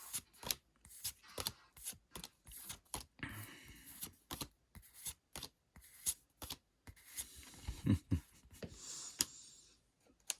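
Pokémon trading cards being flicked through by hand: a quick run of light card-edge snaps and clicks, with a few brief rustling slides and a couple of duller knocks about eight seconds in.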